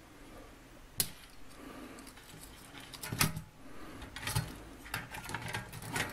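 Clicks and light metallic clatter of the painted sheet-metal parts of a toy excavator being picked up, moved and knocked together on a workbench, a handful of sharp knocks with small rattles between them.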